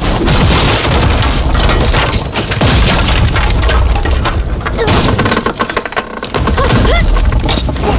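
Animated-series destruction sound effects: heavy, continuous rumbling and crashing with cracks, loud throughout, with a short lull about six seconds in before the crashing resumes.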